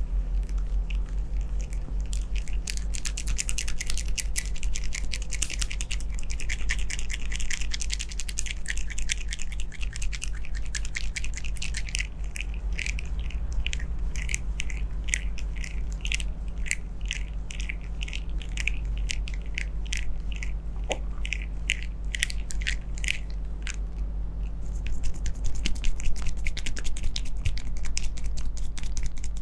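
Close-up massage sounds of palms rubbing and cupping over a man's ears and short hair: rapid scratchy rustling and soft clicks, with a brief lull about three quarters of the way through, over a steady low hum.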